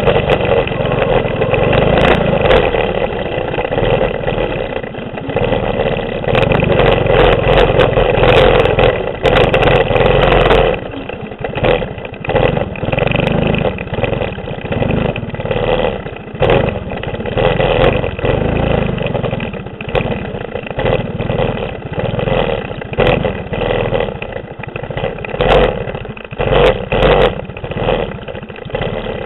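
Mini bike's 6.5 hp clone single-cylinder four-stroke engine running hard, then easing off and back on the throttle from about ten seconds in, with frequent knocks and rattles over the rough ground.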